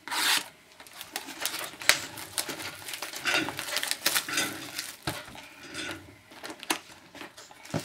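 Clear plastic shrink wrap being torn and peeled off a trading-card box, crinkling and crackling in many quick, irregular snaps.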